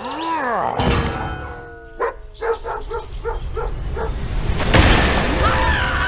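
Edited cartoon sound effects over music: gliding whistle-like tones, a noisy rush about a second in, a run of about six quick pitched pips, then a louder noisy rush near five seconds followed by more gliding tones.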